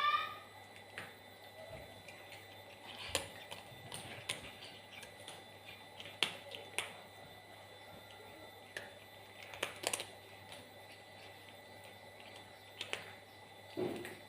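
Sparse sharp clicks and taps, a second or more apart, in a small room. A short cat meow tails off at the very start.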